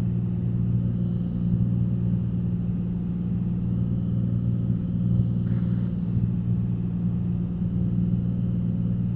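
Cessna 182's piston engine and propeller droning steadily in flight, an even low hum.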